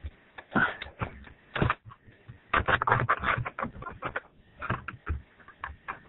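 Irregular clicks and knocks in quick succession, densest from about two and a half to three and a half seconds in.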